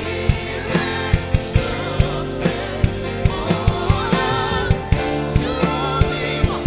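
Live worship band music: drums keep a steady beat under sustained chords. A voice sings a wavering melody line from about halfway through until near the end.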